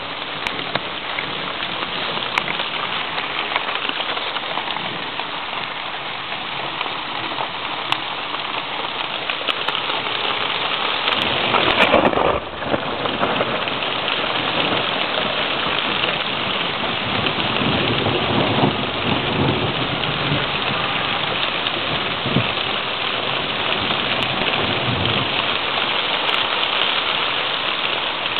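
Thunderstorm at its onset: rain pouring steadily with thunder rumbling low in the second half. A louder rush about twelve seconds in cuts off abruptly.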